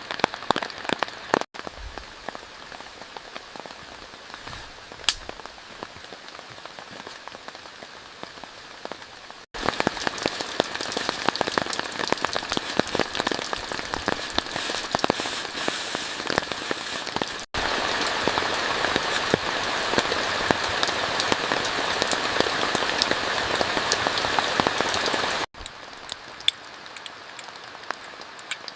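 Heavy rain falling, with many sharp single-drop hits close by. Its loudness jumps at abrupt cuts: it is quieter at first, louder from about a third of the way in and loudest in the second half, then quieter again near the end.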